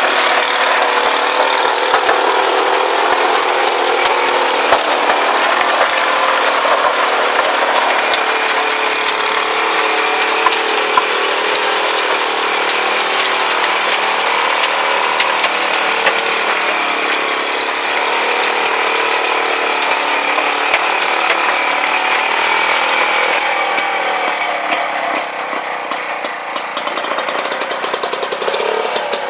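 Motorobot PF 62 walking tractor's engine running steadily under load, driving its wide rear rotavator through the soil. The sound eases a little about three-quarters of the way through.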